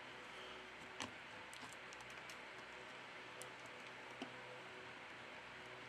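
Faint, scattered clicks and taps of a smartphone's plastic middle frame being pried and lifted off, the clearest about a second in, over a steady low hiss.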